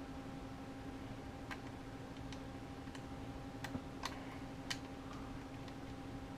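Scattered small clicks and taps, about seven at irregular intervals, as plastic drone parts and a fitting are handled and pressed into place, over a steady faint hum.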